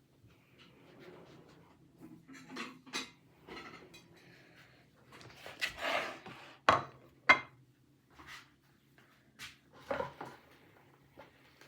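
Kitchenware being handled while preparing food: irregular clinks, knocks and scrapes of dishes and utensils, with two sharp knocks a little past halfway. A faint steady low hum runs underneath.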